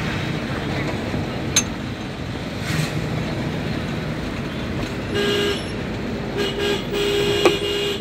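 Road noise from inside a moving vehicle, with a vehicle horn honking in the second half: one short honk, two quick ones, then a longer one. A sharp click about one and a half seconds in.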